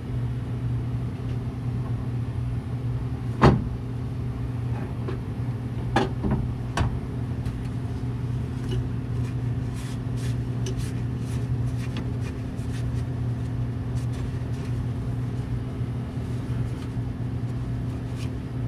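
A steady low hum underneath, with a sharp knock about three and a half seconds in, two lighter clicks around six seconds, and faint scattered ticks later on, from hand work and a rag at the brake booster where the master cylinder has been removed.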